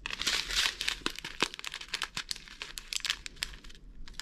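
Small plastic bags of diamond-painting drills crinkling as they are handled, with many small sharp clicks from the rhinestone-like drills shifting inside; the rustling eases briefly near the end.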